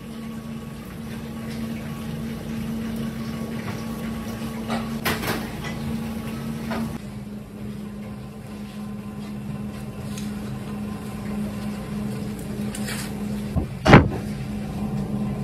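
Steady low hum of kitchen machinery running, with light clicks as wooden skewers and shrimp are handled on a plastic cutting board, and one sharp knock near the end.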